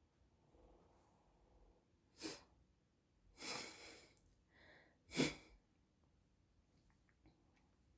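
A person sneezing several times after a faint inhale. The sneezes come as short, sharp bursts, and the loudest is about five seconds in.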